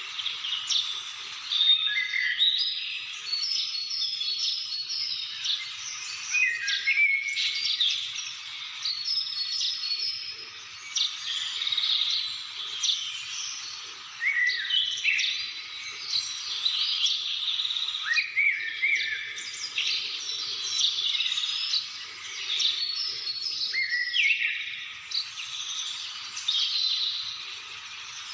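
A dense chorus of many birds chirping and calling together, short quick notes and sweeping calls overlapping without a break.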